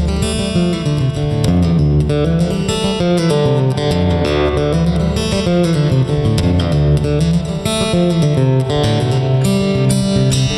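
Instrumental background music led by plucked guitar, with a moving bass line under it.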